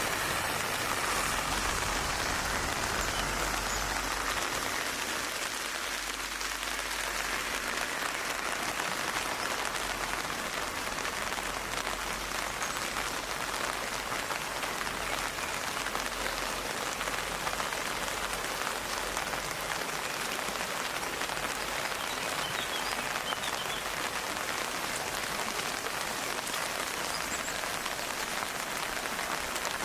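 Steady rain falling and pattering on a surface, an even, dense hiss of drops. A low rumble under it fades out about five seconds in.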